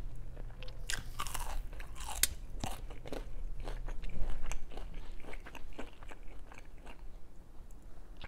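Close-miked eating sounds of a person biting and chewing baked crinkle-cut fries, with many irregular crisp crunches.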